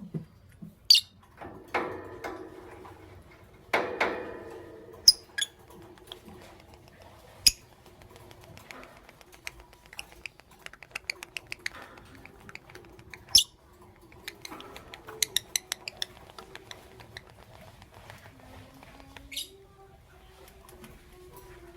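Lovebirds calling: scattered sharp, shrill chirps, the loudest about a second in, around five seconds, seven and a half and thirteen seconds, with two fuller calls near two and four seconds. In the middle runs quick clicking and chittering.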